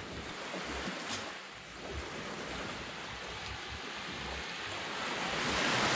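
Steady rushing noise of wind and small waves breaking on the shore, growing louder near the end, with a faint click about a second in.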